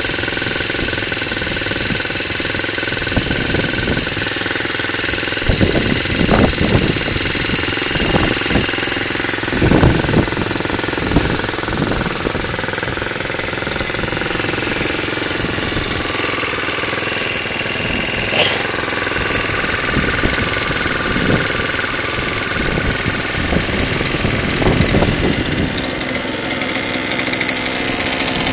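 Small four-stroke engine of a motorized bicycle idling steadily, with a few uneven surges partway through.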